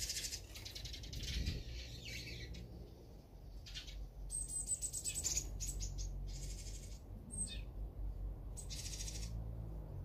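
Small songbirds calling: several bursts of rapid, buzzy chattering calls, with a thin high whistle held for about a second that slurs downward around the middle.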